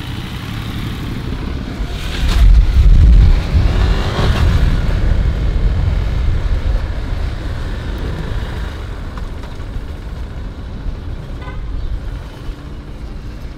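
KTM Duke 390 being ridden down a street, its single-cylinder engine running under heavy wind rush on the handlebar-held microphone. The low rumble is loudest about two to three and a half seconds in, then settles to a steady cruise.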